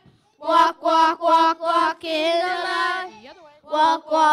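A group of voices singing a praise song in unison, in short repeated phrases, with a brief break just after the start.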